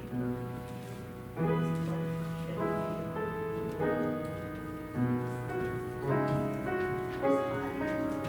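Slow instrumental keyboard music: held chords that change every second or so.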